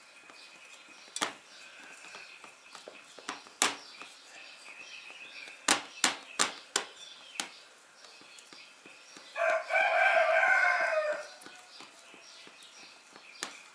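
A rooster crows once near the end, a loud call lasting about two seconds. Earlier, a series of sharp knocks sounds, several in quick succession around the middle, over a faint steady high tone.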